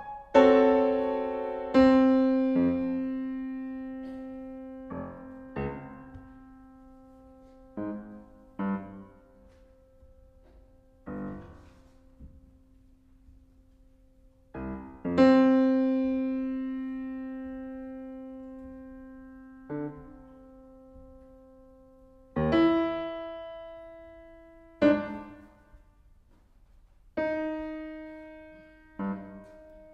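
Yamaha CFX concert grand piano played solo, slow and sparse: chords struck and left to ring and fade over several seconds, with scattered single notes between them. It is recorded through a Panasonic WM-61A electret microphone capsule.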